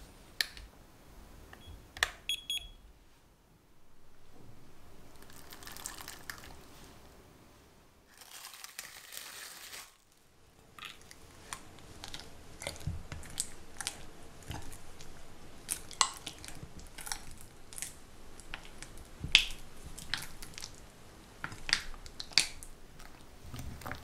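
Plastic wrapping crinkling as blocks of cream cheese are tipped into a glass bowl. From about halfway, a silicone spatula presses and smears the soft cream cheese against the glass, giving irregular squishy ticks and light taps.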